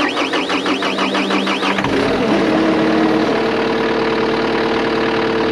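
An engine being cranked with a warbling whine, catching about two seconds in with a rise in pitch, then running at a steady idle.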